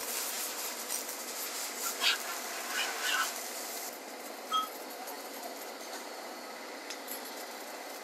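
Electric arc welding: the welding arc crackling and sizzling steadily as a crack in a steel baler reel housing is welded up.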